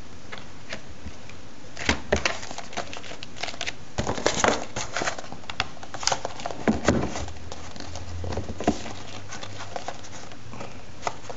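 Handling noise from a Blu-ray case, its cardboard slipcover, art cards and paper booklets being packed back together: irregular rustling with scattered light clicks and taps.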